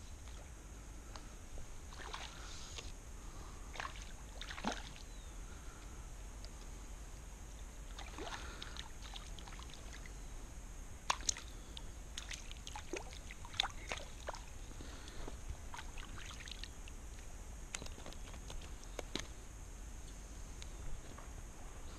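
Small scattered knocks and clicks on a sit-on-top Wilderness Systems Tarpon 100 kayak, with light water sloshing at the hull over a steady low background rumble. A few sharper clicks come in the middle.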